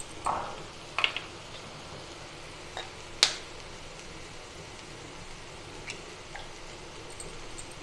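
Eggs being cracked by tapping the shells with a steel spoon: a few short, sharp taps, the loudest about three seconds in. A low, steady sizzle of mushrooms frying in a pan on a gas stove runs underneath.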